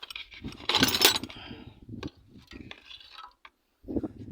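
Metal parts clinking and clattering against each other, the loudest clatter about a second in, with lighter rattles after.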